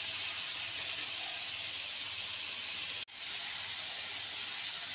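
Masala-coated boiled eggs sizzling steadily in hot oil in a frying pan over a high gas flame. The sizzle cuts out for an instant about three seconds in, then carries on.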